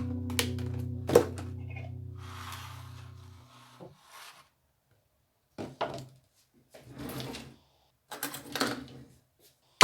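A held guitar chord rings out and fades away over the first few seconds. Then come several short, soft rubbing and knocking sounds of kitchen handling, spaced about a second apart.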